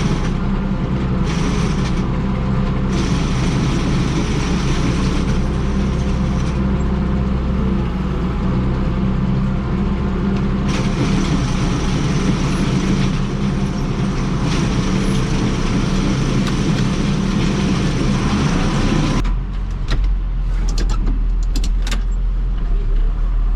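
Tractor engine running steadily at working revs, pulling a feeder wagon. About nineteen seconds in the engine note changes and drops, with a few sharp knocks after.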